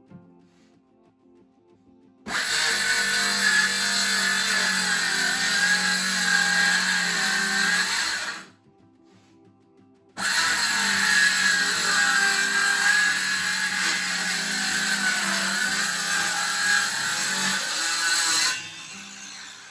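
A power tool running in two long spells, about six and eight seconds, separated by a two-second pause. Each starts and stops abruptly.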